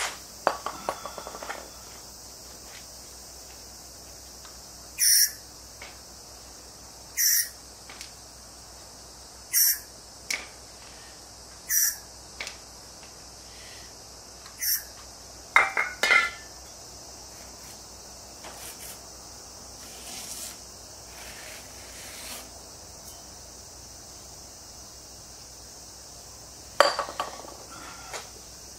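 Short hisses from an aerosol spray can, five bursts about two seconds apart, over a steady high drone of insects. A few light metallic clinks follow in the second half.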